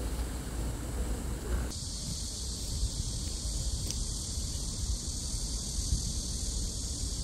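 Wind noise rumbling on the microphone outdoors. About two seconds in, a steady high-pitched drone of insects comes in and holds.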